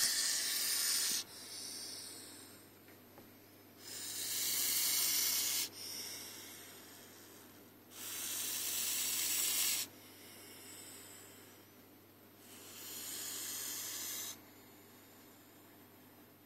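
Bull snake hissing: four loud, drawn-out hisses about four seconds apart, each followed by a shorter, softer hiss. It is the snake's threat display.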